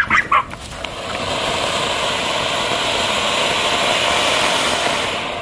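Anar (ground fountain firework) spraying sparks with a loud, steady hiss that builds over the first second and dies away at the end.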